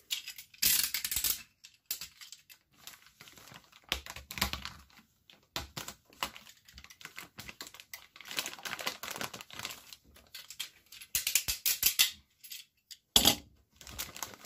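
Thin clear plastic bag crinkling and crackling as hands grip and pull at it to free a vinyl figure inside, in irregular bursts with sharp clicks, busiest near the end.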